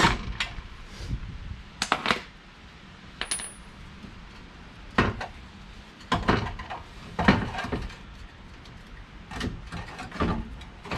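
Scattered metallic clinks and knocks in short clusters, from tools and steel suspension parts as a front strut is worked loose and pulled out of the wheel well.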